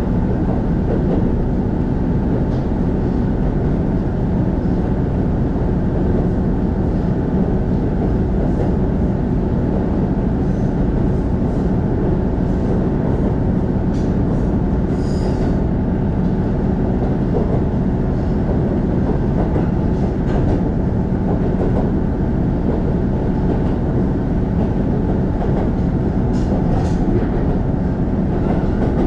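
Diesel railcar of the non-electrified Kururi Line, heard from inside the cabin: a steady low engine drone and wheel-on-rail rumble while the train runs at speed. A short, faint, high-pitched squeal comes about halfway through.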